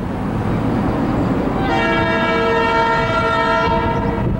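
EMD SD40-2 freight locomotive's air horn sounding one long blast of about two and a half seconds, starting a little under two seconds in, over a steady low rumble.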